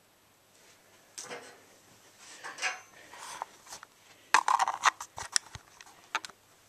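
Irregular clicks, taps and rubbing of objects being handled close to the microphone, with a quick cluster of sharp clicks about four to five seconds in.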